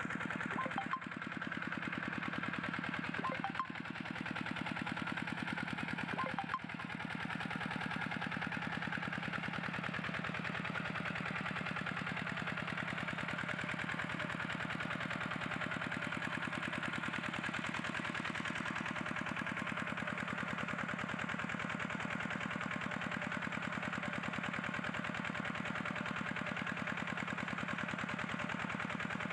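Small stationary engine driving an irrigation water pump, running steadily at a constant speed with a rapid, even pulse. A few light clicks sound in the first seven seconds.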